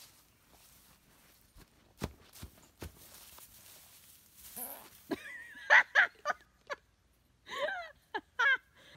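A few faint taps, then a person laughing in short repeated bursts from about halfway through.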